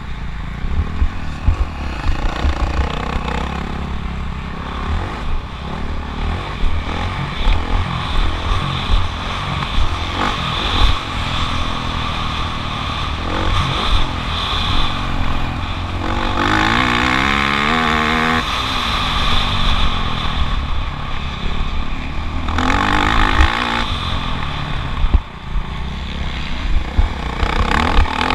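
Motocross bike engine revving up and falling back repeatedly while racing, its pitch climbing and dropping most clearly about two-thirds of the way through. Heavy low buffeting from wind and bumps on the GoPro microphone runs under it.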